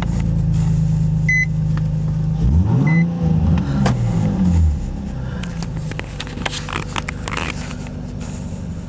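Nissan 350Z's 3.5-litre V6 idling, revved once about two and a half seconds in, its pitch rising and falling back before settling to a quieter idle. A short electronic chime beeps at a steady pace through the first few seconds.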